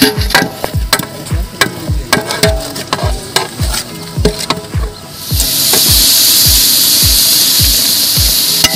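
Background music with a steady bass-drum beat. About five seconds in, a loud steady sizzle of country-chicken biryani masala frying in a large pot over a wood fire joins it.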